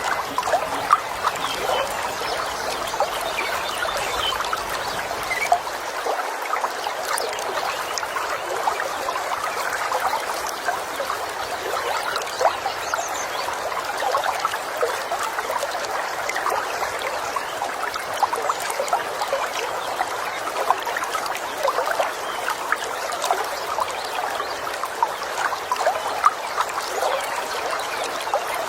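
A small stream babbling and trickling over stones, steady and unbroken.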